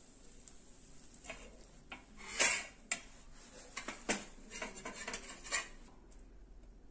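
Steel spatula and a stainless steel plate clinking and scraping against a tawa as toasted pav buns are lifted off the pan: a string of separate metal clinks and knocks, the loudest about two and a half seconds in.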